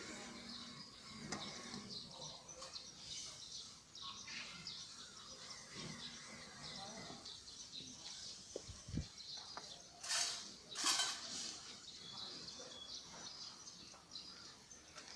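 Outdoor background noise with scattered high chirps and faint voices, a brief low thump, and two short loud hissing noises about ten and eleven seconds in.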